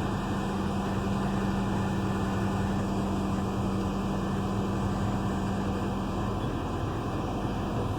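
Caterpillar 320 excavator's diesel engine running steadily, with a steady low hum over it that stops about six seconds in.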